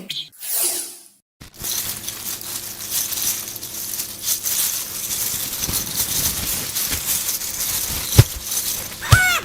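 Small hard pieces clinking and rattling continuously, beginning about a second and a half in, with one sharp knock near the end.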